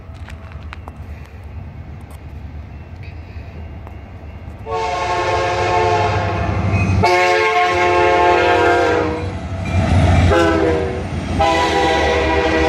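CN freight locomotive horn blowing a chord of several tones, very loud and close, in the grade-crossing pattern: two long blasts, a short one, then a long one that begins near the end. Under it, the low rumble of the train passing grows louder.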